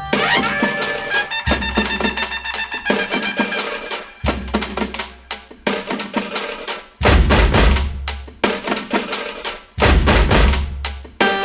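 Background music with drums and percussion, with a deep bass beat coming in partway through.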